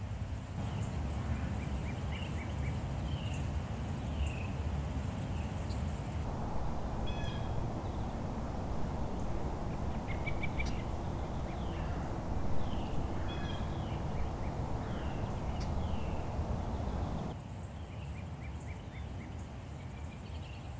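Pine-forest ambience: small songbirds calling in short high chirps and brief repeated phrases over a steady low rumble.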